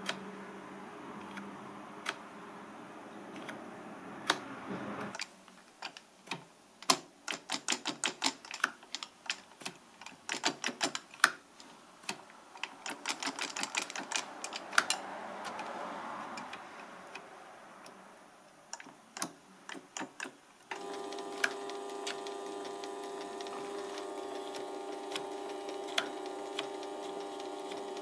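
Sharp metal clicks and quick trains of ticks from a small lathe's half-nut lever and its spring-loaded pawls as the lever is worked by hand. About three quarters of the way through, a steady machine hum sets in, with light ticking over it.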